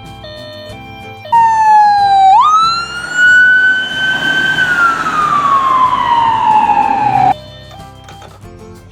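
An emergency-vehicle siren sounds loudly over soft background music. It makes one slow wail: a short dip, a jump up and a gentle rise, then a long fall in pitch. It cuts off abruptly after about six seconds.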